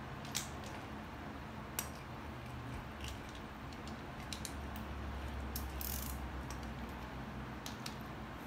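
Hand ratchet with a socket clicking in short, uneven runs as the primary chaincase drain plug is run in and snugged. Two sharper metal clicks stand out in the first two seconds.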